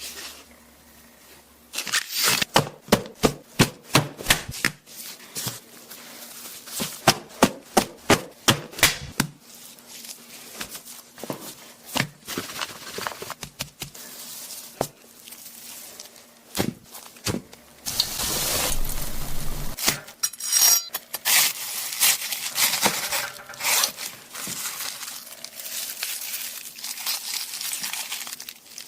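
Kitchen food-preparation sounds: runs of quick sharp taps like chopping on a board, crinkling and tearing of packaging, and a burst of hiss about 18 seconds in, over a faint steady appliance hum.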